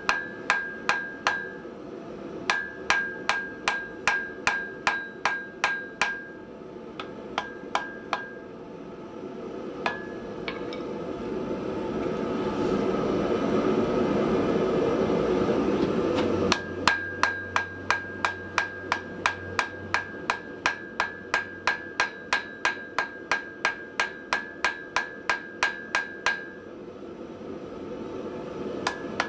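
Hand hammer striking hot steel on an anvil in quick runs of about three blows a second, each blow with a bright anvil ring, as a post vise jaw is forge-welded and drawn out over a drift. Midway the hammering stops while a rushing noise builds for several seconds and cuts off suddenly, and then the blows resume.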